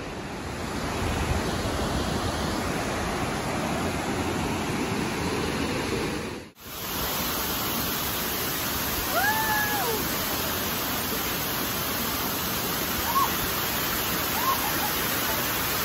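Waterfall: a steady rush of falling water, cutting out for a moment about six and a half seconds in and then going on, now close by as water pours over rock steps.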